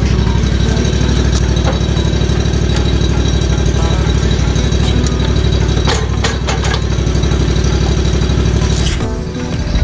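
Exmark commercial walk-behind mower's engine running steadily with a fast low pulse as the mower is walked down metal loading ramps. A few sharp clanks come about six seconds in, and the engine sound dips briefly near the end.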